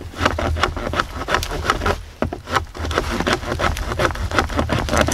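Sawback spine of a Reapr Tac Bowie knife sawing through a dead wooden stick in quick, rasping strokes, about four or five a second.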